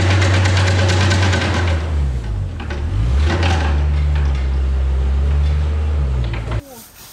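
Compact farm loader's engine running under load while spreading straw with its grab fork, its pitch dipping and rising again about two to three seconds in. The sound cuts off abruptly near the end.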